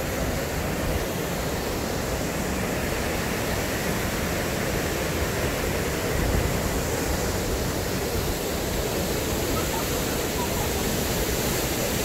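Steady rush of an artificial waterfall pouring down a man-made rock cliff into a canal.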